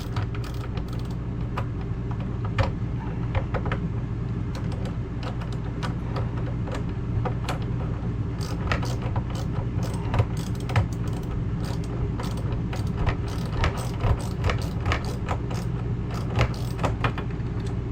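Light metallic clicking and clinking of a socket ratchet and loose hinge bolts as a refrigerator door's hinge bolts are worked out, in irregular clusters, over a steady low hum.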